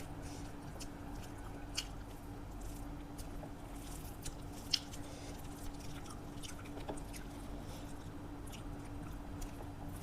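A person chewing food close to the microphone, with scattered mouth clicks and small bites; one sharper click about halfway through. A steady low hum runs underneath.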